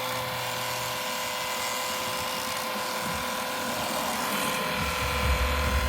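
Small 12-volt electric fluid transfer pump running steadily with an even motor whine, pumping old gearbox oil out through its lines. A low thudding rumble comes in near the end.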